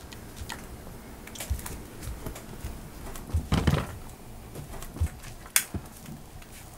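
Small objects being picked up and set down on a table: scattered light clicks and knocks, with a louder clatter about three and a half seconds in and a sharp click a couple of seconds later.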